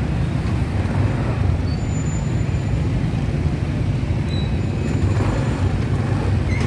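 A motor engine running with a steady low rumble, and faint street noise around it.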